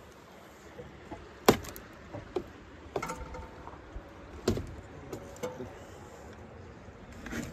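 A few sharp knocks and clicks from handling, the loudest about one and a half seconds in, with others near three, four and a half and five and a half seconds, and short squeaks around three and five seconds in.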